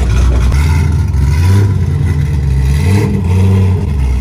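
Loud car V8 engine revving in several pulses as a C5 Corvette pulls out with a deep exhaust note.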